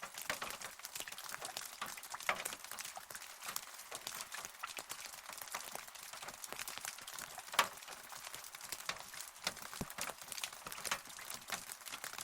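Rain falling, with many individual drops ticking irregularly on a nearby surface over a light hiss of rainfall; one drop lands louder about halfway through.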